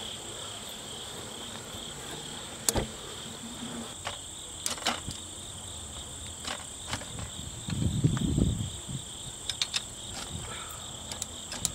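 A steady high chorus of insects, with scattered sharp metal clicks and knocks from adjusting the chainsaw mill's frame, and a brief low rumble about eight seconds in.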